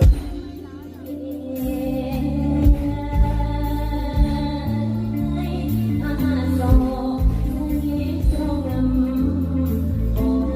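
Song with singing over a steady bass line and beat, which drops back briefly at the start and then picks up again.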